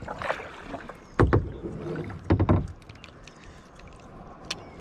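Two dull knocks against a plastic kayak hull, one about a second in and another a second later, while fishing from the kayak with a spinning rod.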